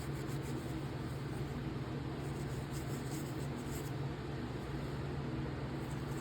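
Faint, rapidly repeated rubbing of a cloth wiping a folding knife's liner and lock face, over a steady low hum.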